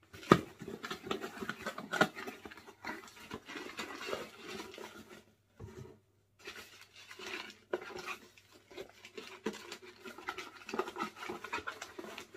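A small shipping box and its packaging being opened by hand: irregular scratching, rustling and crinkling, with a sharp click just after the start and a brief pause a little before halfway.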